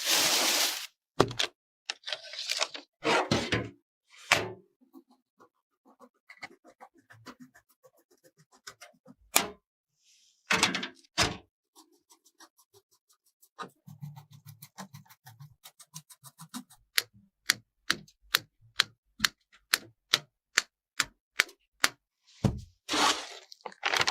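A run of sharp clicks, knocks and thunks with a few short hissing swooshes. Later the clicks come evenly, about two a second.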